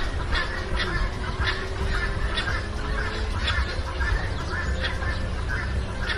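Monkey sound effect: short, high chattering calls repeating about two to three times a second over a low rumbling background.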